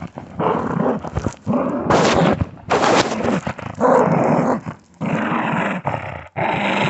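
Dog growling in several rough bursts with short breaks between them, guarding a catch that its owner is trying to take from it.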